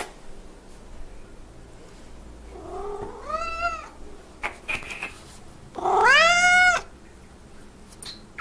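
Calico cat meowing twice, each call gliding up and then holding: a shorter one about three seconds in, then a louder one of about a second.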